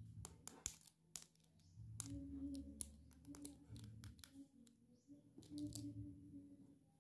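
Hard plastic doll-bed pieces being handled and knocked together: a scattering of light clicks and taps in small clusters, with short gaps between.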